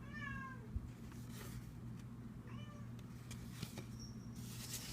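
Domestic cat meowing twice, a short call at the start and another about two and a half seconds in, over a steady low hum. Soft rustling and clicks follow near the end.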